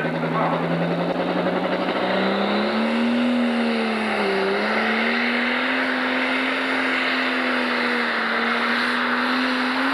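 Turbocharged diesel engine of a Pro Stock pulling tractor running flat out under heavy load as it drags the weight-transfer sled. Its note climbs over the first few seconds, sags briefly about four seconds in, then holds high and steady.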